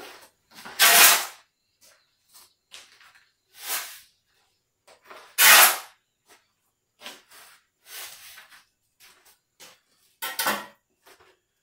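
Long-handled shovel scooping sand off a concrete floor and tipping it onto a hanging sand sieve, as about five short, loud scraping strokes a few seconds apart, the loudest about a second in and about five seconds in.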